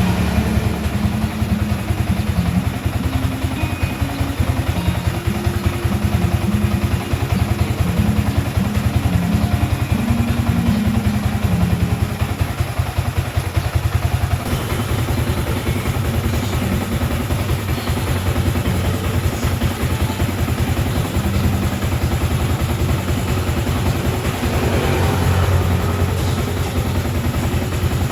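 Yamaha Sniper 155 VVA's single-cylinder, liquid-cooled four-stroke engine running steadily at low speed, its exhaust a fast, even pulsing; the tone shifts slightly about halfway through.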